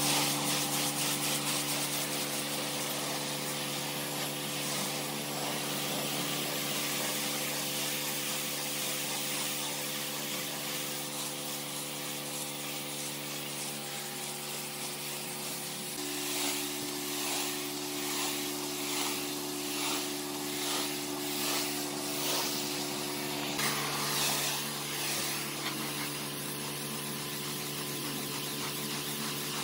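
Pressure washer blasting a concrete sidewalk: the jet hisses against the wet pavement over the machine's steady hum. Partway through, the spray swells and fades about once a second as the wand sweeps back and forth.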